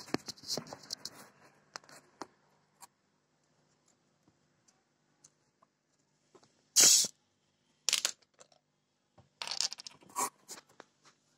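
Short sharp hisses of carbonation escaping as the screw cap of a plastic Coke bottle is twisted open, the loudest about two-thirds of the way in and a few more after it, with scattered handling noise around them.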